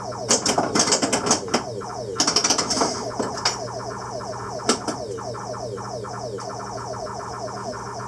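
Williams Black Knight pinball machine in play: sharp clacks of bumpers, flippers and solenoids mixed with electronic sound effects that fall in pitch. It is busiest over the first three seconds, with a dense run of rapid clicks about two seconds in, then scattered hits.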